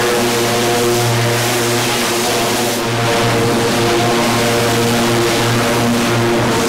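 High-pressure spray lance blasting a bare steel car body shell: a loud steady hiss of the jet over the drone of its pump motor, dipping briefly about three seconds in.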